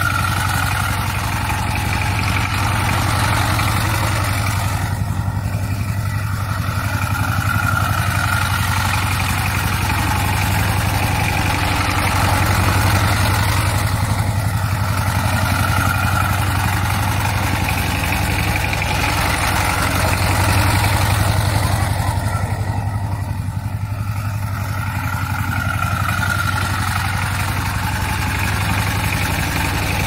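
Single-cylinder diesel engine of a two-wheel walking tractor (power tiller) running steadily with an even low chugging, growing louder and softer every few seconds as the machine moves about.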